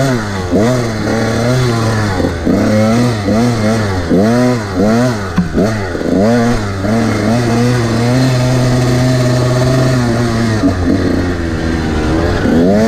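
Honda CR125 two-stroke dirt bike engine being ridden hard, its pitch rising and falling again and again with throttle and gear changes. About two thirds of the way through it holds a steady pitch for a couple of seconds, then drops lower.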